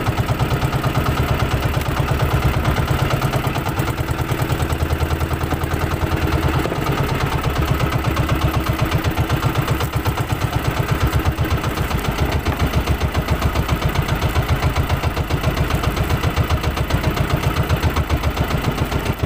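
Engine of a motorized outrigger fishing boat running slowly with a steady, rapid, even beat.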